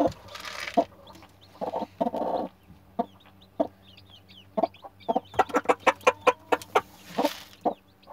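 Broody hen on a nest of just-hatched chicks clucking in quick runs of short clucks, with faint high peeping from the newly hatched chicks. A couple of brief rustles come between the runs, near the start and again near the end.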